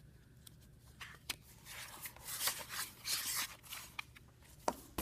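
Paperback picture book handled and its cover opened: a few light taps, then paper rustling and scraping as the cover is turned back.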